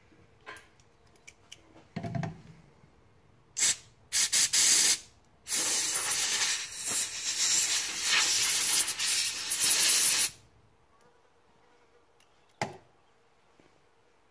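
Aerosol can of brake cleaner spraying in hissing blasts: two short ones, then one long spray of about five seconds. A light knock or two from parts being handled comes before and after.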